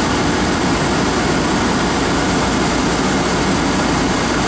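Steady road and engine noise of a moving car, heard from inside its cabin.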